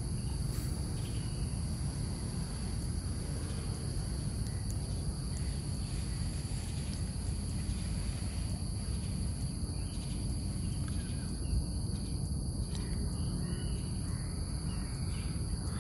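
A steady, high-pitched insect chorus trilling without a break, over a low, steady rumble.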